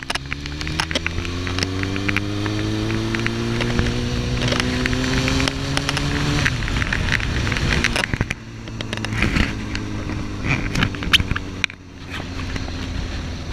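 Suzuki GSX-R1000 inline-four engine accelerating, its pitch rising steadily for about six seconds, then dropping sharply and running on lower and steadier. Short crackling clicks run through the recording, a fault in the audio.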